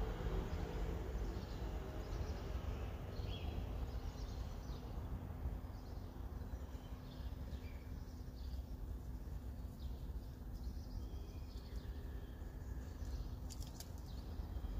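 Outdoor ambience: a low steady rumble with a faint hum, over which faint birds chirp now and then; a couple of sharp clicks near the end.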